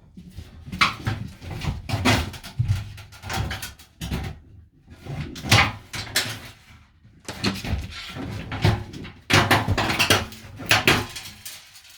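Irregular bursts of knocking, clattering and scraping as fittings and objects are handled and moved about in the small van interior.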